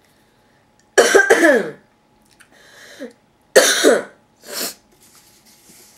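A man coughing: a hard cough about a second in, another a few seconds later followed quickly by a shorter one.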